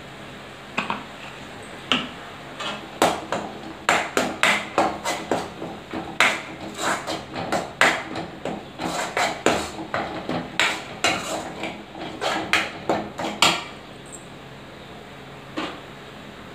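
Steel ladle knocking and scraping against a steel kadai while onion paste mixed with turmeric is stirred: a run of quick irregular clanks from about a second in, stopping shortly before the end, over a steady low hiss.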